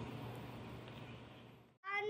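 Faint room noise that cuts out briefly. Near the end, a high, meow-like call begins and slides down in pitch.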